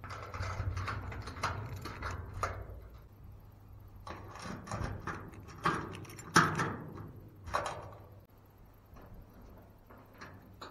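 Mechanical handling noises: a string of irregular knocks, clicks and rattles, the loudest a little past the middle, with a faint steady hum underneath.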